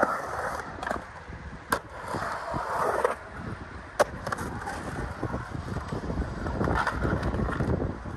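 Skateboard wheels rolling and carving on a concrete skatepark bowl, swelling and fading with the turns. A few sharp clacks of the board hitting the concrete or coping come at the start, about two seconds in and about four seconds in.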